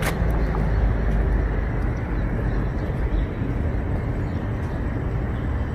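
Steady low rumble of city street traffic, with a sharp click right at the start.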